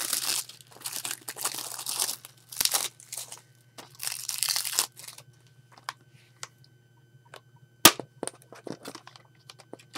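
Cellophane shrink-wrap crinkling and tearing as it is peeled off a plastic Blu-ray case, for about the first five seconds. Then scattered light clicks and one sharp snap about eight seconds in as the blue plastic case is pried open.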